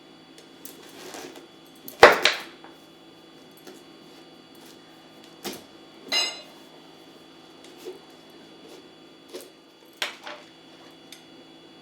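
Scattered knocks and clinks of kitchen utensils on a spaghetti squash and dish as the squash is worked on and its seeds scooped out. The loudest knocks come about two seconds in, and a clink about six seconds in rings briefly.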